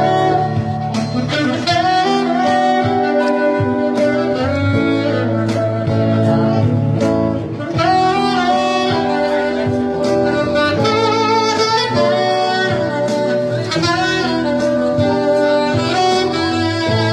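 A saxophone playing a melody of held notes and quicker runs over a live band's accompaniment with a steady low bass line.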